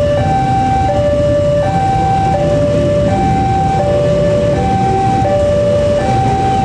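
Railway level-crossing alarm sounding a steady two-tone alternation, low and high tones each held about 0.7 s, over the low rumble of an electric commuter train passing.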